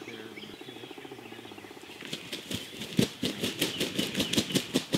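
Downed wild turkey flopping, its wings beating fast and evenly. From about two seconds in the beats turn into sharp, loud hits, about five a second, growing stronger.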